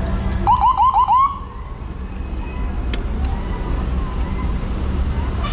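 Electronic emergency-vehicle siren giving a quick burst of five rising whoops about half a second in, over a steady low rumble.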